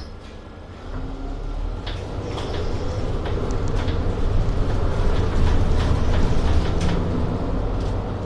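Mercedes city bus heard from inside the cabin, its engine and drivetrain rumbling louder as it picks up speed from about a second in, with scattered short rattles and clicks from the cabin.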